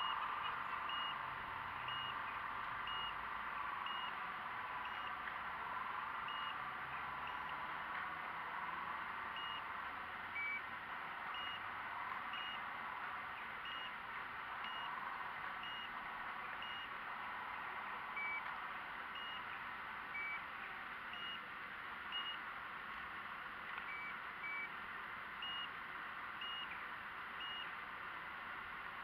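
Radio-controlled model tractor and excavator working. A short, high beep repeats about once a second, like a reversing alarm. Under it runs the whine of small electric motors, gliding up and down in pitch as the machines move.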